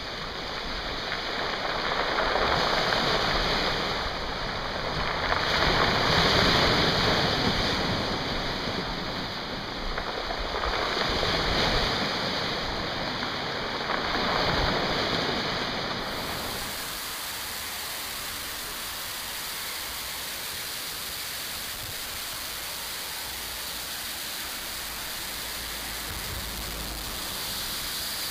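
Sea waves washing in over large shore rocks, the rush of surf swelling and easing every few seconds. About sixteen seconds in it cuts to a steady, even rush of a rain-swollen river pouring over a weir.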